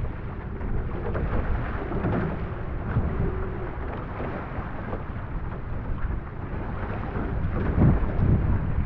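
Wind rumbling on the microphone of a camera mounted on a one-person outrigger canoe, with water rushing and splashing against the hull and paddle as the canoe is paddled through wind-driven chop.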